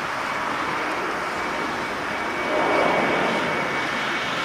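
Jet engines of a Jetstar Japan Airbus A320-200 climbing out overhead after takeoff: a steady roar with a thin high whine over it, swelling a little about two and a half seconds in.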